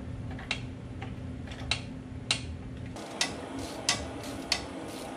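Hand ratchet clicking in slow, even strokes, a sharp click roughly every half second, as a sway bar nut is tightened down on the front suspension.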